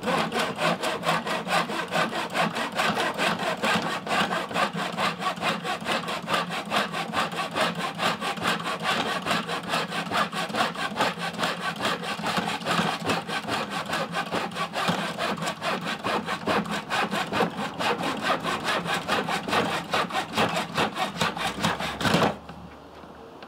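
Hand mitre saw cutting through a piece of scrap wood with quick, even back-and-forth strokes. It stops with a last stroke about a second before the end.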